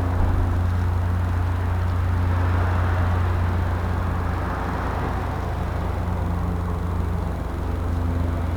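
A steady low engine hum, like a vehicle idling, holding an even level throughout.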